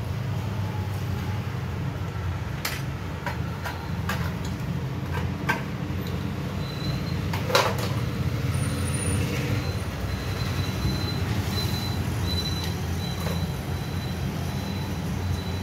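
Sharp clicks and knocks from a screwdriver and the plastic housing of a tractor RPM meter being handled and taken apart, the loudest about seven and a half seconds in, over a steady low background rumble.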